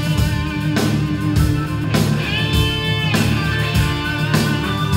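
Live rock band playing: electric guitars over drums keeping a steady beat and a heavy low end.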